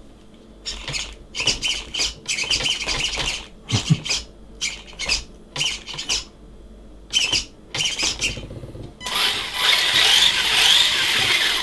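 Radio-control buggy's electronics being tested from the transmitter: short whirring bursts from the steering servo as the steering is worked, then, from about nine seconds in, the Tamiya GT-Tuned brushed 540 motor spinning the four-wheel-drive drivetrain steadily.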